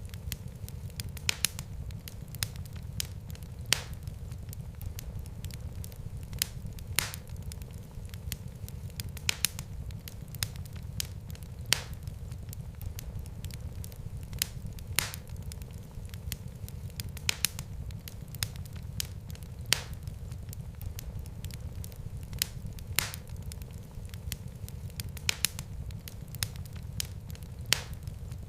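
Fireplace fire crackling: sharp snaps and pops come irregularly, about one every second or so, over a steady low rumble of the flames.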